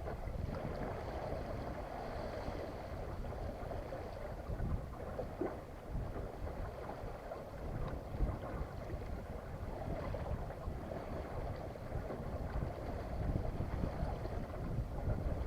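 Wind buffeting the microphone aboard a small sailboat under sail, with a steady rush of water along the hull. The low gusts rise and fall throughout.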